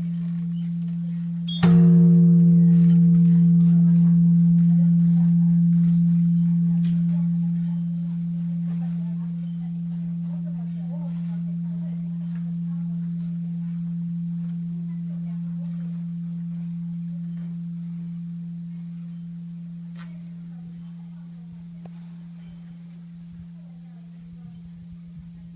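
Large Japanese temple bell (bonshō) at Zentsuji, struck once with its wooden striking beam about two seconds in, over the hum of an earlier strike. The bright upper tones die away within a few seconds, while the deep hum rings on, swelling and ebbing slowly as it fades.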